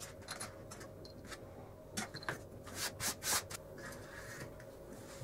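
A hand rubbing and brushing across a work mat, with a few light taps of small objects set down, then a quick run of about five short swishes about two seconds in. A faint steady hum sits underneath.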